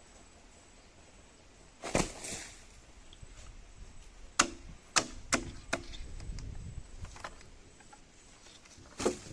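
Hard knocks of coconut-palm wood: a dull thump about two seconds in, then four sharp knocks in quick succession a couple of seconds later, and one more near the end, as sawn pieces are handled or struck.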